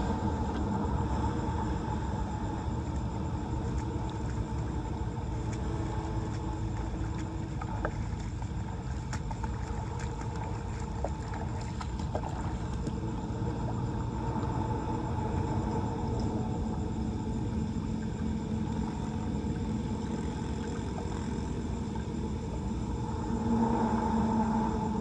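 A steady low rumble like a running motor, with a droning tone that swells slightly near the end and a few faint scattered clicks.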